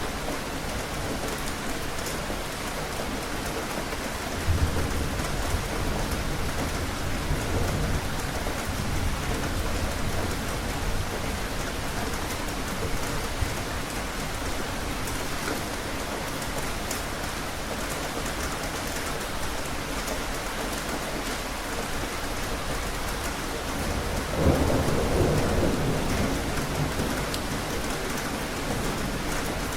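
Steady heavy rain, with thunder rumbling low about four seconds in and again, louder, about five seconds before the end.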